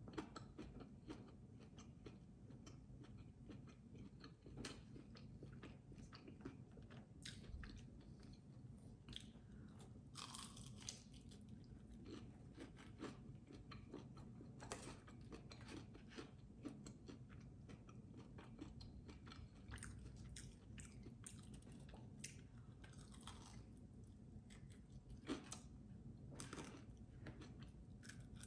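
A person biting and chewing a crispy fried chicken wing, with scattered crunches and wet mouth clicks at a low level.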